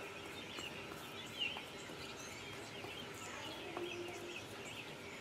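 Faint bird chirps in the background, with soft scraping and a few light ticks from a fork spreading mashed potato over raw pork on a wooden board.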